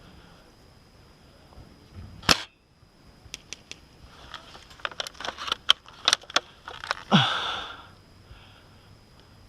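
Airsoft spring sniper rifle firing once with a sharp crack about two seconds in. A run of clicks and rattles follows, then a short rushing burst near the end.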